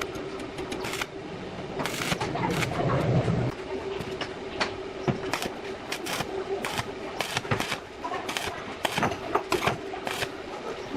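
Electric hand drill running steadily, with many irregular sharp metallic clicks and knocks. There is a louder, deeper rumble about two to three and a half seconds in.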